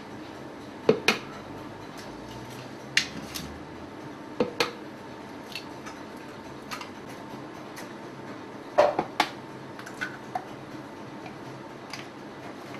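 Eggs being cracked one after another for pastry dough: sharp taps of eggshell, often in quick pairs, every second or two, over a low steady room hum.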